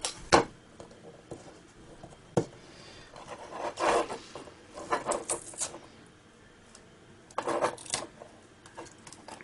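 Fingers handling and picking at the flat lithium cells of a laptop battery pack: a couple of sharp clicks, then three short bursts of rubbing and scraping, around four, five and seven and a half seconds in.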